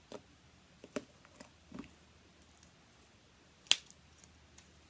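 Pink slime being stretched and squeezed by hand: a few soft, scattered squelches and sticky clicks, with one sharper click a little after halfway through.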